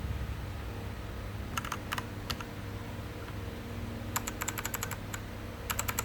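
Keys being typed on an Azio MK-MAC-U01 mechanical keyboard with K-Switch switches: a few scattered keystrokes, then a quick run of typing about four seconds in and another burst near the end.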